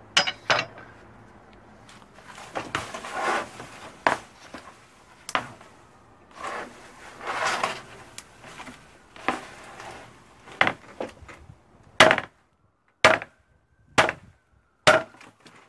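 A machete working a dry palm frond against a wooden block: rasping, tearing strokes as the fibrous frond is split and stripped, then four sharp chopping blows about a second apart near the end.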